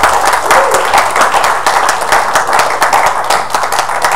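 Congregation applauding: many hands clapping together.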